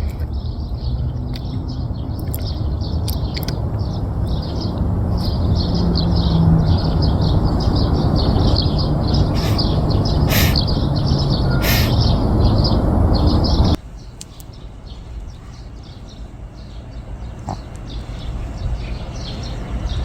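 Birds chirping rapidly and continuously over a loud, steady low rumble. About two-thirds of the way through, the sound drops suddenly to a quieter background where the chirping is fainter.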